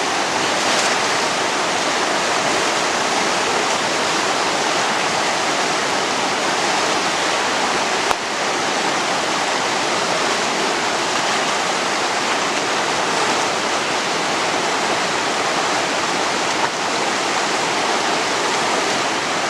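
Himalayan river rushing, a steady, even roar of fast-flowing water.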